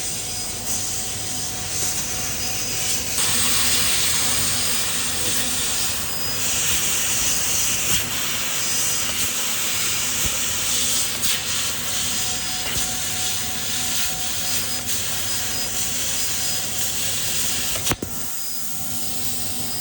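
CNC metal-cutting machine at work: a steady, loud hiss that swells a few seconds in, broken by a single sharp click near the end, after which it is briefly quieter.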